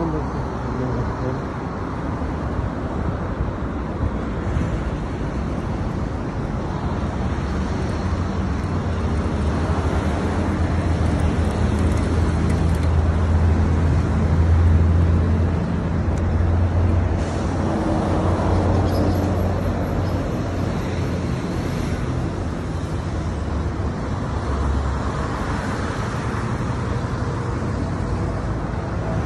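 Road traffic on a wide city street: passing cars make a steady wash of engine and tyre noise with a deep rumble, swelling somewhat about halfway through.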